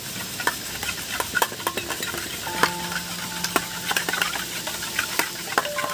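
Raw eggs with chopped coriander being beaten with a flat metal spatula in an aluminium bowl: quick, irregular clicks of the spatula striking the bowl over the wet slosh of the eggs.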